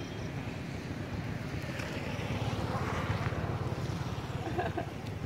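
Wind buffeting the microphone: a steady, rough low rumble.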